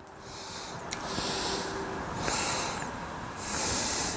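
A person breathing hard near the microphone, four short breaths heard as bursts of hiss, each under a second long.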